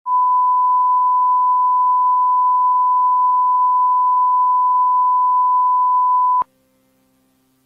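Emergency alert attention tone: a single steady high-pitched beep that holds for about six and a half seconds and then cuts off abruptly with a click. A faint low hum is left behind.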